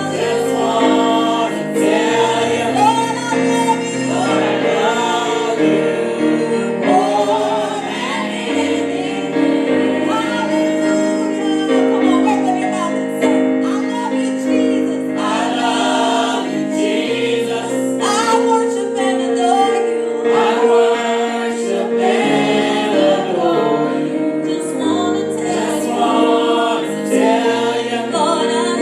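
A choir singing a gospel song, with held instrumental chords and a bass line underneath.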